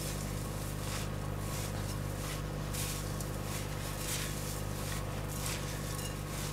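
Rolled oats coated in an oil and honey mixture being stirred with a silicone spatula in a glass mixing bowl: a soft scraping rustle about twice a second. A steady low hum runs underneath.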